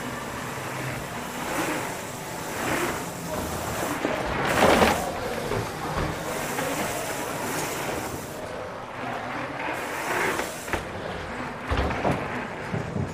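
Mountain bike riding noise: tyres rolling over a packed dirt trail and air rushing over the camera microphone, with a louder rush about five seconds in and a few knocks and rattles near the end.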